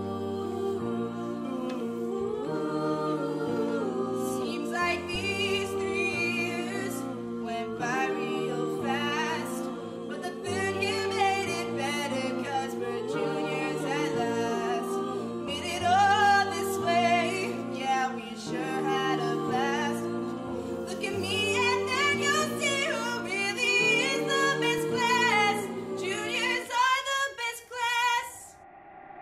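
Music with singing: a sung melody, with choir-like voices, over sustained chords that change every couple of seconds. It breaks off a couple of seconds before the end.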